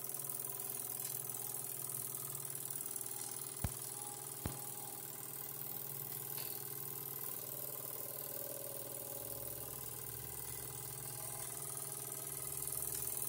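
Jensen 35 1/2 electrically heated toy steam engine running steadily, driving a model bandsaw by a thin belt, with a steady low running sound and hiss. Two sharp clicks a little under a second apart about a third of the way in.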